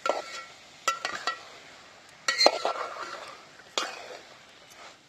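A metal spatula stirring sprouted moth beans in a metal pot. It knocks against the pot's sides about six times, each knock ringing briefly, with scraping between.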